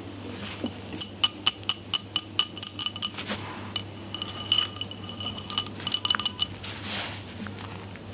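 Rapid clinking taps on small hard slime containers, each tap ringing briefly, in quick runs of about four or five a second with short pauses between.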